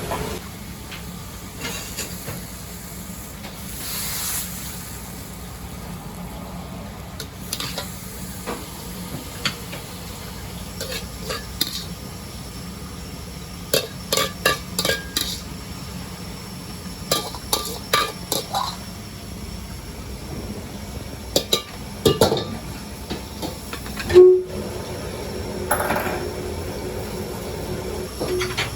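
Stir-frying in a wok: a metal ladle or spatula clanks and scrapes against the wok in irregular bursts over steady kitchen noise, with a single loud clank about two-thirds of the way through.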